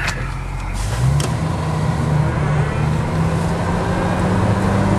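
Jeep Wrangler YJ plow truck's engine running steadily as it drives. It grows a little louder about a second in.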